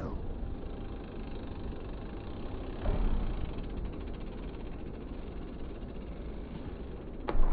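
Steady low outdoor rumble, with a thump about three seconds in as a bike hops up onto a concrete skatepark box, and a sharp knock near the end.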